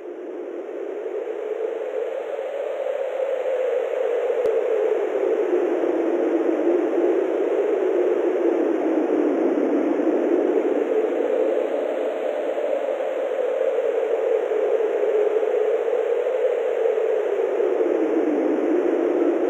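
Steady rushing noise with no distinct tones. It fades in over the first second or two and drifts slowly up and down in pitch.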